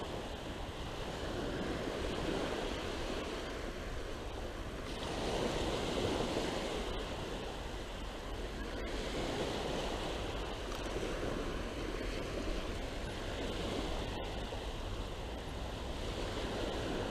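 Small waves washing onto a sandy beach: a steady rush of surf that swells and eases every few seconds.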